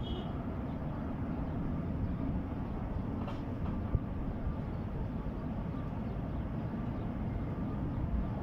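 Steady low rumbling background noise, with a single faint click about four seconds in.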